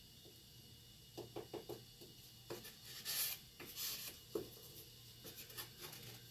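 A small stick scraping and tapping against a paint-covered board: a few faint clicks, then a short scraping rub a little after halfway, then more light ticks.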